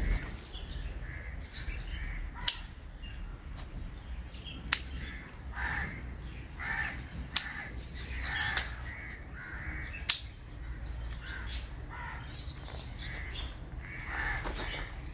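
Hand pruning shears snipping branches off a jungle jalebi (Pithecellobium dulce) bonsai: about four sharp snips a couple of seconds apart, the loudest sounds. A bird calls over and over in the background.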